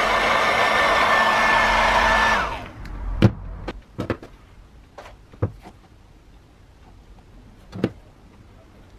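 Hot air gun blowing, a steady rushing fan noise with a whine in it. It is switched off about two and a half seconds in and winds down quickly. Then come several sharp knocks and clicks of the angle grinder's plastic motor housing being handled and a wire pressed in with pliers.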